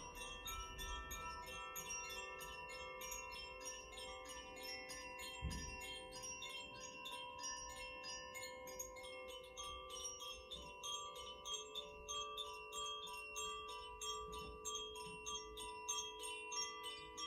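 Koshi chime rung softly and continuously: the tuned metal rods inside its bamboo tube are struck in quick succession, and their ringing tones overlap and sustain. A low thump about five and a half seconds in.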